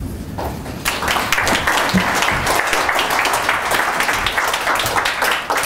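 An audience applauding, a dense mass of hand claps that swells sharply about a second in and keeps going.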